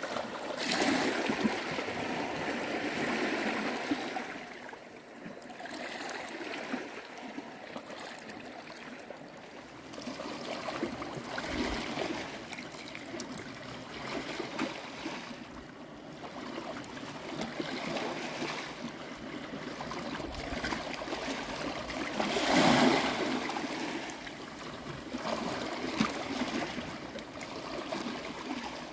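Shallow sea water lapping and trickling among shore rocks, swelling and fading as small waves wash in, with one louder wash late on.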